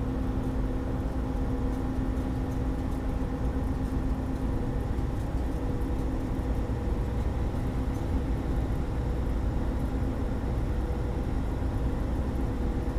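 Semi truck running down the road, heard from inside the cab: a steady low engine and road rumble with a constant hum.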